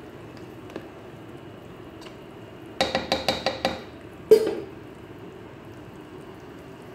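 A metal cooking spoon clinking against a cooking pot: about six quick ringing taps about three seconds in, then one louder clank a second later.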